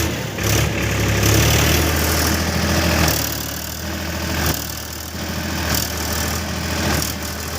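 Heavy diesel machinery engine running with a steady low hum; its level eases off for a couple of seconds midway and then picks up again.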